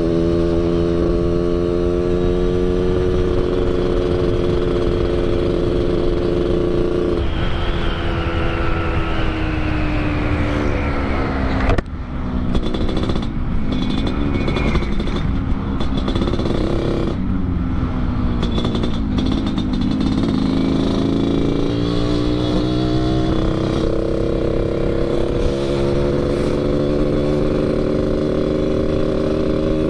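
Yamaha RX-King two-stroke single-cylinder motorcycle with an underbelly expansion-chamber exhaust, ridden on the road. The engine holds a steady note for several seconds, then its pitch falls as it slows. A short stretch of uneven revs follows, and then the pitch climbs slowly as it speeds up again.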